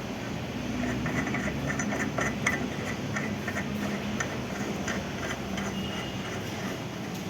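Electric pipe-threading machine running under load as its die cuts a thread onto an iron pipe: a steady motor hum with scattered metallic ticks.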